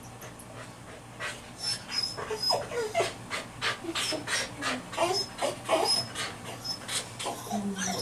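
A dog sniffing and panting in quick short breaths, mixed with brief high whines, starting about a second in.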